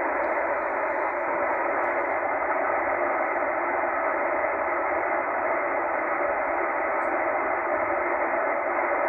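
Tecsun H-501X shortwave receiver in upper-sideband mode putting out steady static hiss through its speaker while it is tuned slowly up around 12.9 MHz. The hiss is thin and muffled, cut to the narrow sideband filter, with no station coming through.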